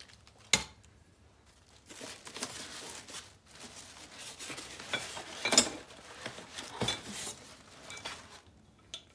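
Plastic wrapping crinkling and rustling as the metal parts of a hand-operated leather stitching machine are handled in their packing, with metal parts clinking and knocking together. A sharp knock comes about half a second in, and two louder clinks that ring briefly come in the middle.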